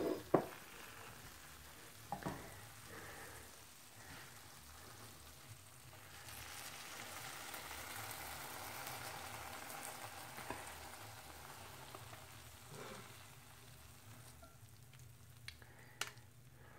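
Hot frying pan, just off the burner, sizzling faintly as teriyaki chicken and rice is tipped and slid out of it into a ceramic bowl; the sizzle swells in the middle and fades near the end. A few sharp knocks near the start.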